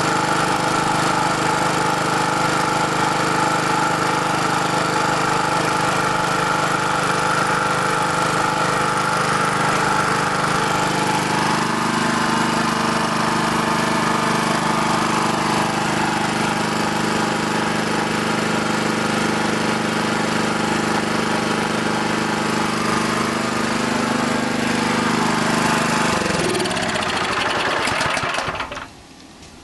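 Honda GX200 single-cylinder engine on a Simpson pressure washer running steadily. Its note shifts slightly about eleven seconds in; near the end it is shut off and winds down to a stop.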